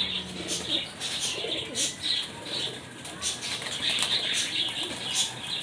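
Domestic pigeons cooing, with wings flapping and short sharp taps throughout.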